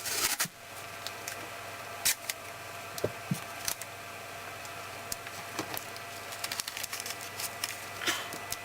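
Masking tape being pulled off the roll and pressed around a cord by hand. A longer tearing rasp comes right at the start, then scattered short rustles and clicks of tape and cable handling.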